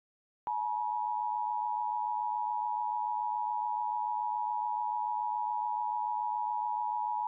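Emergency Alert System attention signal: a steady two-tone alarm (853 Hz and 960 Hz sounded together) that starts about half a second in and holds without a break.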